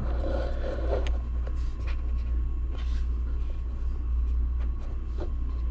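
Steady low room hum with a faint thin whine above it, and a few faint clicks and taps as small metal red dot sights are handled on a cardboard box.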